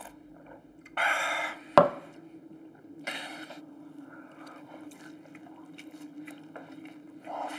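Close-up mouth sounds of a person drinking and eating: a loud wet gulp, a sharp crack just after it, another gulp about two seconds later, then scattered small chewing clicks, all over a low steady hum.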